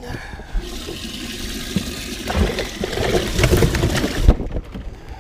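Water rushing and splashing in a bass boat's livewell while fish are culled, growing splashier about halfway through, then stopping abruptly.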